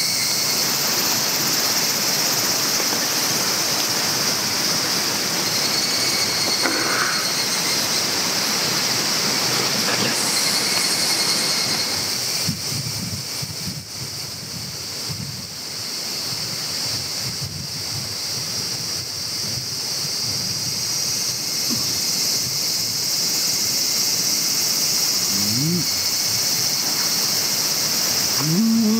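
Insects droning steadily at a high pitch over a low hiss. It eases somewhat quieter about halfway through, then comes back up.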